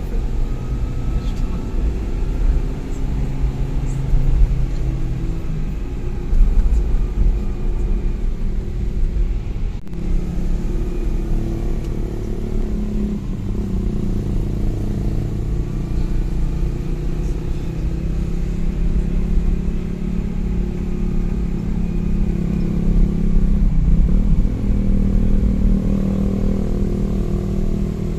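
Motor vehicle engine running with a steady low road rumble, its pitch shifting slightly now and then.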